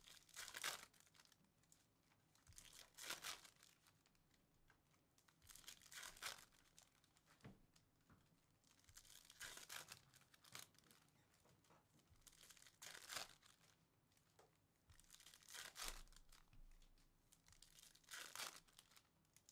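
Foil wrappers of baseball card packs being torn open and crinkled: a string of short, faint rips and rustles, one every second or two.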